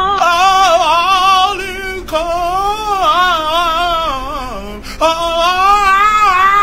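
A small dog howling: three long, wavering howls, each breaking off briefly before the next.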